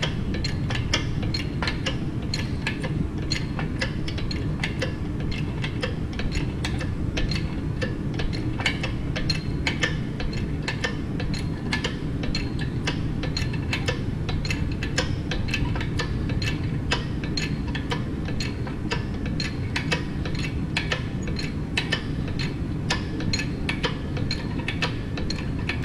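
Chain hoist clicking steadily, a few clicks a second, as it lifts a tractor transmission's clutch pack assembly out of its housing, over a low steady hum.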